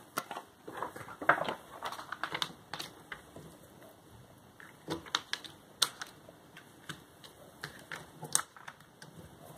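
Paper cut-out being handled and pressed onto a paper backdrop: irregular rustling and crinkling with scattered light taps and ticks.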